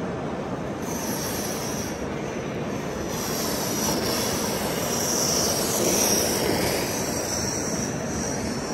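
A gauge 1 live-steam model locomotive running past with its carriages: a steady hissing rush of steam and wheels on the track, growing louder as it comes by and loudest about six seconds in.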